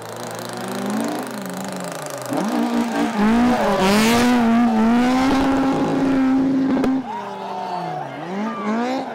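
Rally car engine running hard at high revs close by, its note climbing and wavering, with a rush of noise as it comes closest. Near the end it drops sharply in pitch and level as the throttle comes off, then picks up again.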